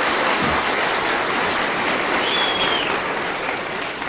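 Audience applause, steady and easing slightly toward the end, with a brief high tone about two seconds in.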